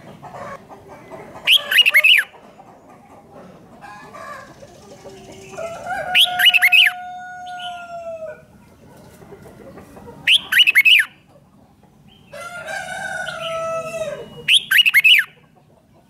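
Red-whiskered bulbul singing four short, loud phrases of quick high notes, about four seconds apart. Between them a rooster crows twice in the background, each crow long, held and falling at the end.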